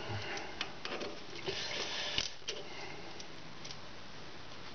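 Soft rustling and a few light clicks as hands pick up a digital caliper and set it against the turned workpiece.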